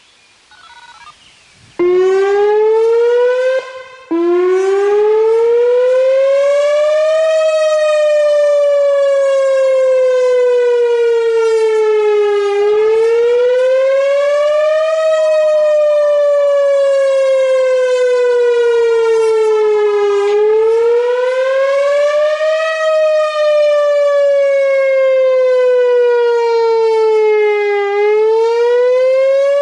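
Whelen 4004 electronic outdoor warning siren sounding its wail signal on a weekly test: one loud tone that climbs and falls slowly, peaking about every seven and a half seconds. It starts about two seconds in, cuts out for a moment near four seconds, then keeps wailing.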